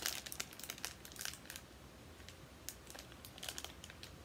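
Clear plastic wrapping crinkling as it is peeled off a small bottle by hand: faint crackles, busy for the first second and a half, then only a few scattered ones.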